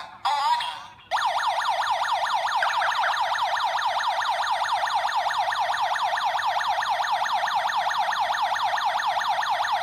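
Smart home alarm system's siren sounding for a triggered motion sensor: a loud electronic wail sweeping rapidly up and down. It breaks up briefly within the first second, then sounds without a break.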